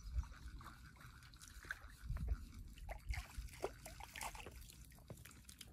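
Faint, small water splashes and drips as a hooked brook trout is reeled in through the shallows, with a few low bumps about two seconds in.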